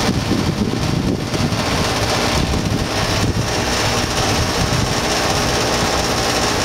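Broan 3-ton heat pump's outdoor unit running: a steady hum from the compressor under the even rush of its condenser fan.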